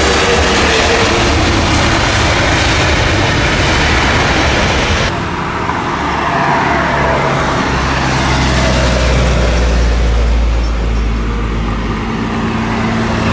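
Steady motor-vehicle engine and traffic noise. About five seconds in, the sound changes abruptly to a lower, steadier engine drone.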